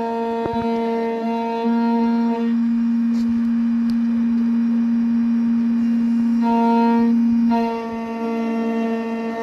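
Background music: long held notes from a reedy, clarinet-like wind instrument, moving slowly from note to note.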